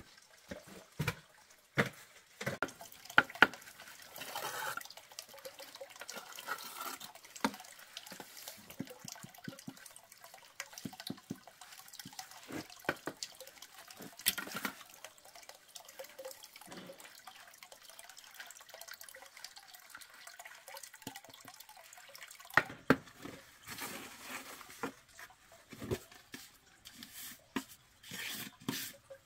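Water sloshing and dripping, with scattered clicks and sharp knocks; the loudest knocks come a few seconds in and again near the end.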